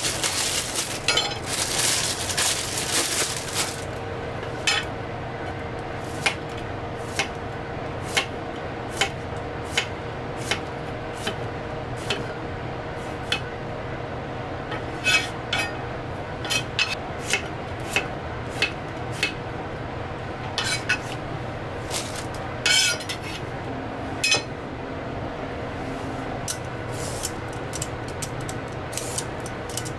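Chef's knife tapping and knocking on a thick plastic cutting board in irregular single cuts while ginger and an eggplant are cut, over a steady hum. A burst of rustling clatter comes in the first few seconds.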